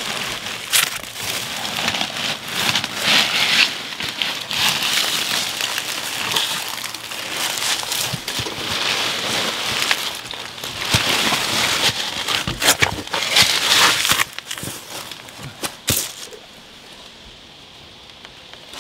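Dry leaves and debris crackling and crinkling under a person crawling through a narrow crawl-space opening, with clothing scraping against the edges. The rustling dies down near the end.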